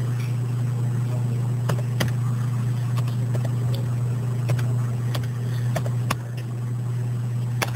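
A steady low hum runs throughout, with about nine sharp clicks scattered irregularly over it.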